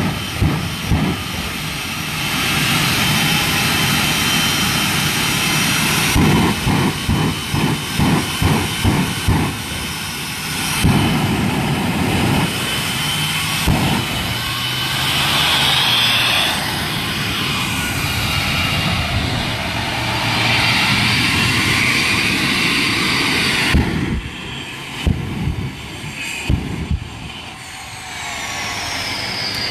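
A jet engine on a jet-powered monster truck runs at full power, blasting its exhaust into a burning car: a loud, dense rush of noise with a stretch of rapid pulsing partway through. It drops off sharply about 24 seconds in, and near the end a falling whine is heard.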